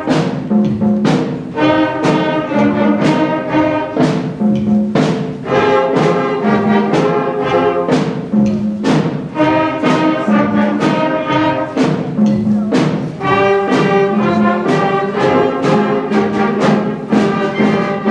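School band playing a blues-style piece: sustained brass chords over repeated sharp drum strokes, the music running on without a break.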